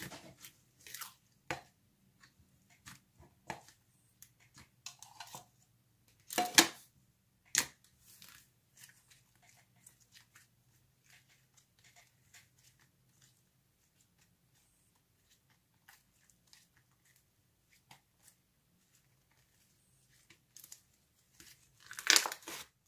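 Thick butter slime being pulled, stretched and squished by hand, giving scattered soft sticky clicks and pops with pauses between them. The loudest pop comes about six and a half seconds in, and a quick run of them comes near the end.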